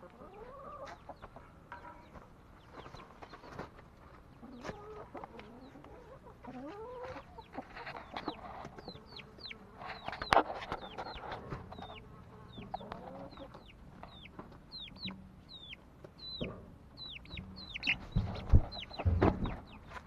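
Domestic hens clucking and calling while feeding, with many short high falling chirps through the second half. A few loud thumps near the end.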